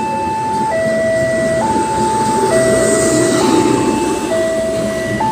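Level-crossing warning alarm sounding a two-tone electronic signal, switching between a high and a low tone about every second, over the rumble of passenger-train coaches rolling past on the rails. The alarm signals that a train is crossing.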